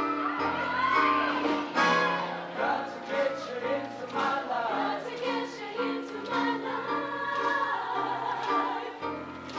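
High school show choir of men and women singing, with a steady bass line under the voices.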